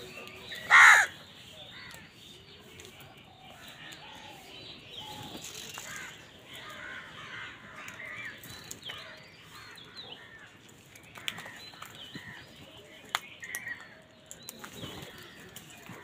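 A house crow gives one loud caw about a second in, then the flock keeps up softer calls and chatter, with a few sharp clicks later on.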